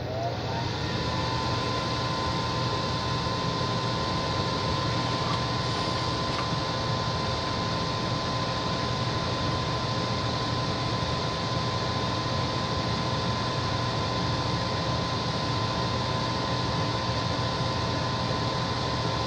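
Gas furnace draft inducer motor (exhaust evacuation fan) spinning up with a rising whine, then running steadily to blow exhaust out of the burn chamber. This is the first stage of the furnace's ignition sequence, before the igniter heats and the gas lights.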